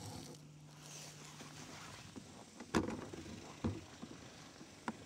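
Handling noise on the camera as it is picked up from the snow and turned upright: three sharp knocks, the loudest about three seconds in, over a faint steady hum that stops about a second and a half in.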